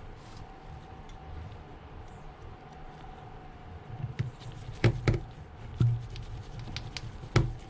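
Small sharp clicks and taps of tools and phone parts being handled, starting about four seconds in, with a few louder knocks: two close together, one a moment later and one near the end. A low steady hum lies underneath.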